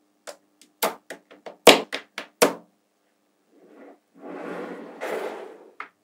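Small magnetic balls clicking sharply as strips of them snap and knock together: about ten quick clicks over two seconds. Then comes a rattling rustle as the balls shift and rub against each other, and a last single click.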